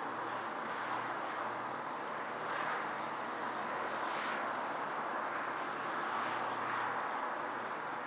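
Distant city road traffic: a steady wash of car noise, swelling slightly about two and a half seconds in and again around six seconds in.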